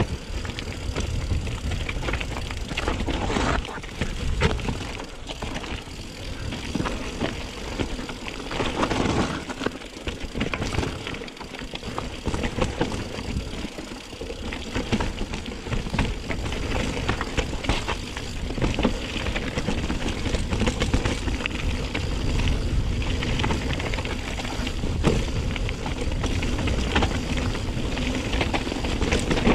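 Mountain bike rolling along a rough trail: tyres crunching over gravel and the bike rattling, with a steady wind rumble on the chest-mounted microphone. The low rumble eases off for a few seconds near the middle.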